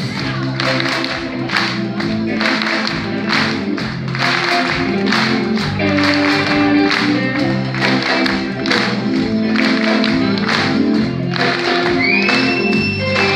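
Rock band playing live, with electric guitar, bass, keyboards and drums keeping a steady beat of about two a second.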